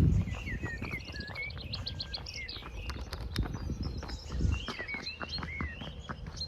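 Birds chirping with short rising and falling whistled notes, over scattered clicks and steps, with a heavy thump at the start and another about four and a half seconds in.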